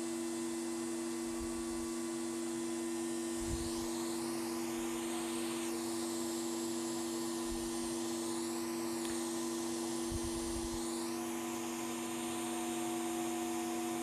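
Steady electrical hum from running equipment, holding two constant low tones. A faint hiss sweeps up and down in the highs from about four to eleven seconds in, with a few faint low thuds.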